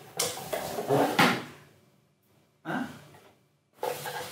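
Cardboard box being opened: the lid scrapes and rubs as it is slid off, then goes quiet, with a short scuff in the middle and papers rustling near the end.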